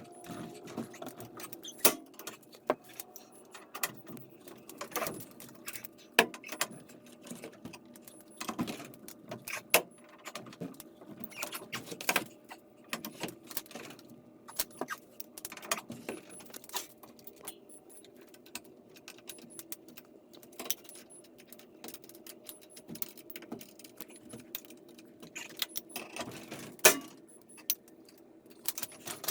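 Irregular metal clinks and knocks from hand work on garage door torsion spring hardware, likely steel winding bars in the spring's winding cone.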